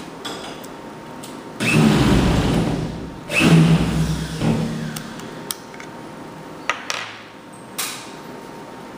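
Handling noise from hands working a small plastic wireless-microphone receiver close to the recording mic: two loud rubbing, rustling bursts, then a few sharp plastic clicks.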